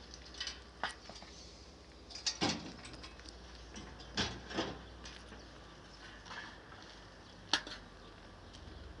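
A shovel scraping and knocking as coal is shoveled off a truck bed: a few short, separate scrapes and clicks a second or two apart, over a faint low hum.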